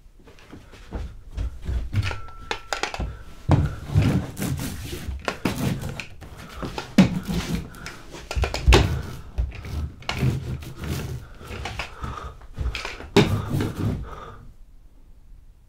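Sticky lint roller worked back and forth over a wooden floor: an irregular run of crackles and knocks with low thumps.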